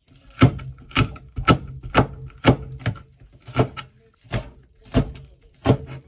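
Kitchen knife chopping green chili peppers on a cutting board: about nine sharp knocks, roughly one every half second, with a brief pause around the middle.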